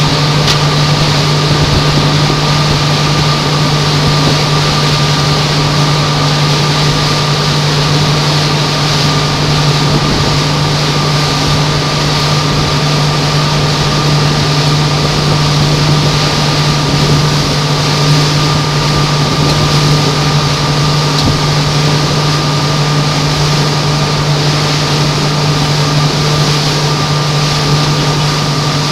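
Motorboat engine running steadily at cruising speed: a constant low hum with a thin higher whine above it, over a steady rush of wind and water.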